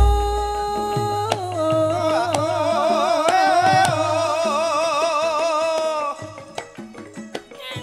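Javanese gamelan music with a female singer holding long notes with a wavering vibrato, opening on a deep low stroke. Her voice stops about six seconds in, leaving sparse gamelan percussion.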